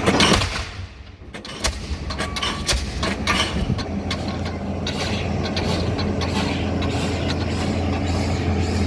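DD65 diesel pile hammer striking a concrete pile again and again, each blow a sharp bang, over a steady low engine drone. A loud blow at the start is followed by a short lull, then the blows come at an even pace.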